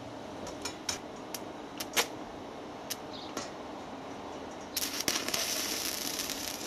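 A few light clicks and taps, then about five seconds in a stick-welding arc crackles for about two and a half seconds: a tack weld fixing a steel panel to a steel gate frame.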